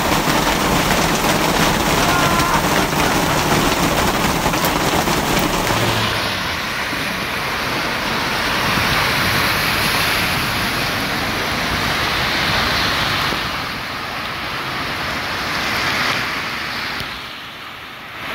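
Hail and heavy rain pelting down in a dense, steady rush. About six seconds in this gives way to car tyres swishing and splashing through slushy hail on a road, rising and falling as cars pass.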